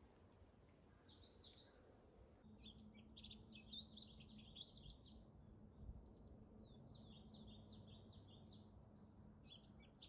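A songbird singing faint phrases of quick, warbling chirps: a short burst about a second in, a long run of rapid notes from about two and a half to five seconds, and another run from about seven to nine seconds. A faint steady low hum sits underneath.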